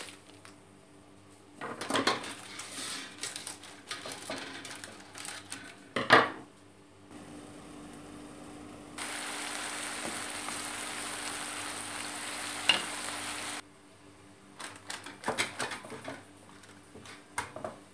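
Rustling and handling of shortcrust pastry and baking paper in a tart dish, with a sharp knock about six seconds in. Then a steady hiss of courgette slices cooking with a little water in a lidded pan, which cuts off suddenly. Near the end, more rustling as the pastry is pressed into the dish.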